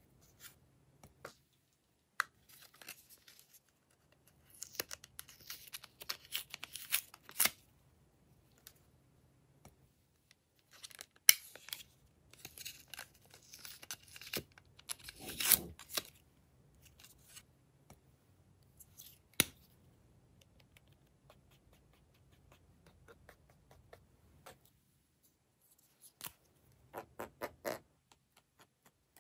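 Glossy slime being pulled and peeled out of plastic cases by hand: short spells of sticky crackling and squishing, with scattered sharp plastic clicks and a quick run of clicks near the end.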